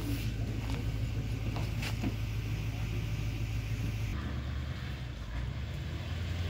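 Steady low hum of a truck engine running, which shifts slightly about four seconds in; a couple of faint sharp ticks are heard over it.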